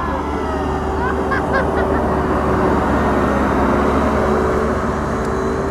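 Diesel engines of JCB backhoe loaders running steadily, growing louder toward the middle and easing near the end, with a few short high calls about a second and a half in.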